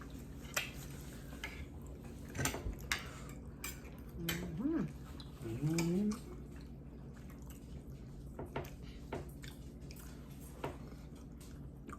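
Cutlery clinking and scraping on plates while people eat, a dozen or so scattered clicks, with a short faint voice-like sound a few seconds in.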